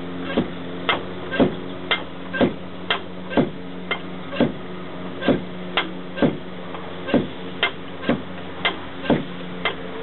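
High-pressure hand pump being worked steadily, about one stroke a second, charging a pre-charged air rifle's reservoir toward 2,000 PSI. Each stroke gives a sharp click and a lower thud.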